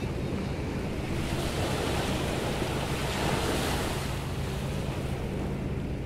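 Ocean surf breaking and washing up a beach of sand and pebbles. One wave's wash swells about a second in and eases off again past the middle.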